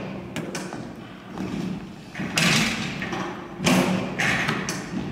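Basketballs thudding on a gym floor during a shootaround, a few separate hits at uneven intervals.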